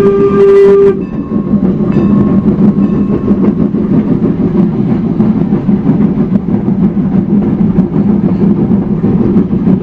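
Steam whistle of Norfolk & Western 4-8-0 steam locomotive No. 475 sounding one loud steady note that cuts off about a second in. After that comes the steady rumbling running noise of the train rolling along.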